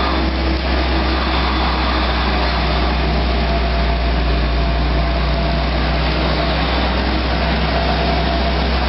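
ABG Ingersoll Rand ECM 350 crawler drill rig running steadily: a deep, even drone under a broad hiss, with no change in pace.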